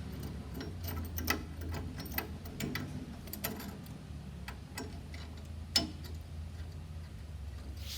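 Irregular small metal clicks and taps as the parts of a linkage-arm press tool are handled and threaded onto the elliptical's crank axle, with one sharper knock near six seconds, over a low steady hum.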